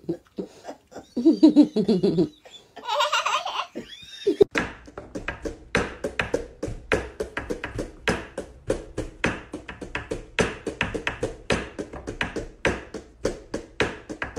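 A small child's voice, then a short high squeal about three seconds in, followed by a long run of quick, even tapping or knocking, about three taps a second.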